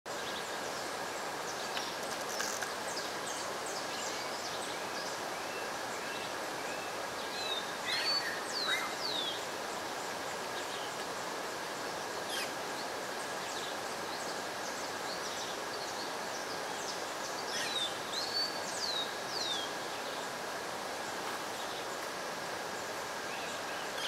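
Steady rushing of a large waterfall in flood, heard from a distance, with a thin steady high tone underneath. Birds call over it: a run of short chirps about four seconds in, then whistled, falling calls around eight seconds and again around eighteen seconds.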